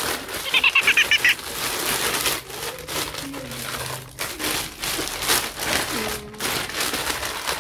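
Plastic packaging bags crinkling and rustling as they are handled and pulled open, with a rapid run of crackles lasting about a second near the start.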